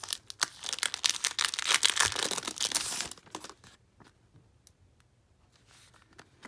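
Plastic packaging crinkling and rustling as a paper notebook insert is handled, a dense crackle for about three seconds that then stops.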